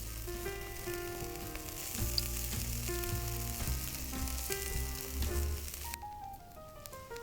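Food sizzling as it fries, under background music with a melody of clear notes. The sizzle cuts off abruptly near the end while the music carries on.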